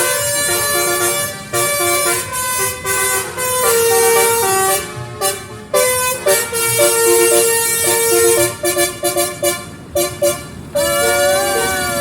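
Basuri telolet musical horn playing a tune of short and held notes. Near the end the pitch swoops up and down.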